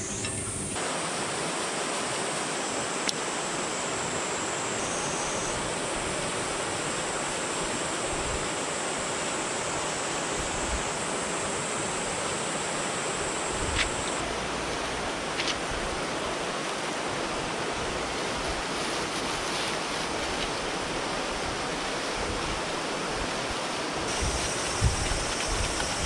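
Steak sizzling on a thick black-iron griddle plate over a campfire: a steady frying hiss with a few sharp pops of spattering fat.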